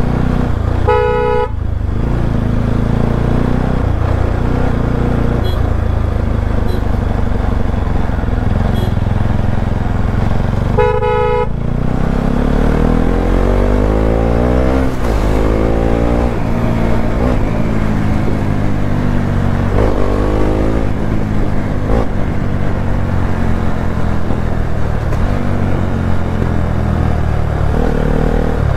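Motorcycle engine running while riding, with two short horn honks, about a second in and again about eleven seconds in. After the second honk the engine pitch rises several times as the bike accelerates.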